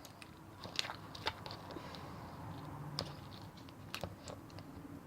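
Sticky homemade glue slime being kneaded and stretched by hand, giving scattered faint clicks and small crackling pops. The slime is still tacky.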